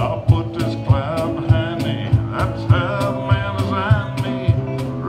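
Live acoustic country song: a man singing with vibrato over guitar and a steady cajon beat of about three knocks a second.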